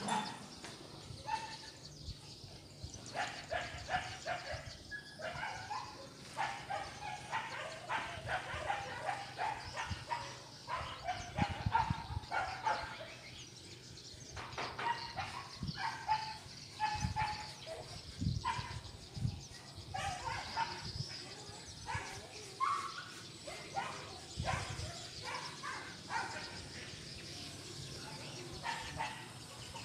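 Dogs barking, many short barks one after another, with a few low thumps in between.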